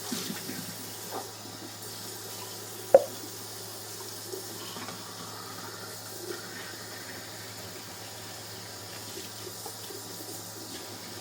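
Kitchen tap running into the sink while dishes are washed by hand, with soft knocks and one sharp clink of a dish about three seconds in.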